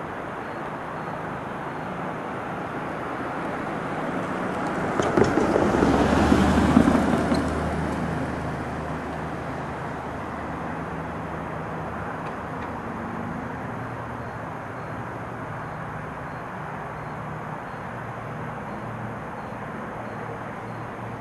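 A car passing on the street: its noise swells over a few seconds, peaks about six seconds in with a low rumble, and fades away, over a steady outdoor background hiss.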